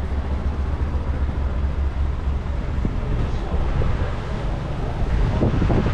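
Outdoor shopping-street ambience: a steady low rumble under a noisy wash, with short clattering sounds near the end.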